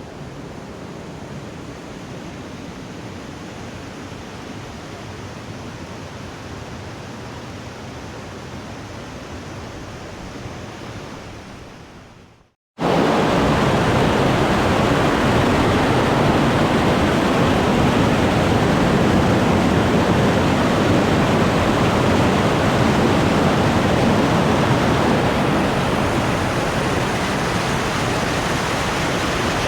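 Steady rushing water of the Putna waterfall. It fades out about twelve seconds in, then cuts back in much louder and stays steady.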